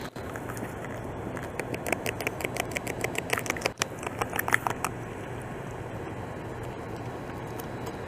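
Beaver gnawing bark off a log: a quick run of sharp clicks and crackles, several a second, for about three seconds in the middle, over a steady low background hum.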